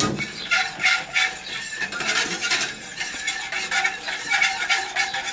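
Wire whisk scraping and clinking against the sides of a stainless steel saucepan in quick, rhythmic strokes, stirring a thin milk, sugar and flour mixture, with a faint metallic ring under the strokes.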